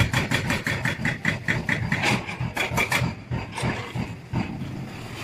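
A vehicle engine running with an even, pulsing beat that fades out about three seconds in.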